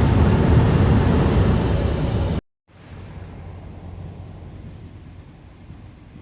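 Loud steady rushing noise, strongest in the low end, that cuts off about two and a half seconds in. Then a much quieter outdoor hush with an insect chirping in an even, high-pitched pulse.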